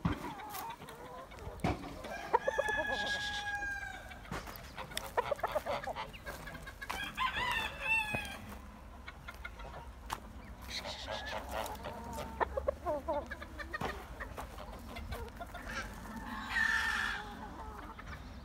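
Roosters crowing several times, long drawn-out crows, with chickens clucking in between.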